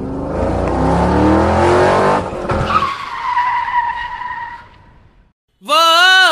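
Cartoon car sound effect: an engine revving up, then a tire squeal held for about two seconds that fades away. Near the end a sustained sung voice begins.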